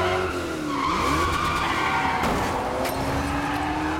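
V8 engine of a red 1970 Chevrolet Chevelle SS muscle car revving hard in a road tunnel: the note dips, tyres squeal briefly about a second in, then the engine climbs steadily in pitch as the car accelerates.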